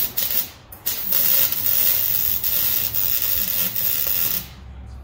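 Wire-feed welder crackling as it lays a bead on a steel exhaust pipe: a short burst, a brief break just under a second in, then a steady run of about three and a half seconds that stops near the end.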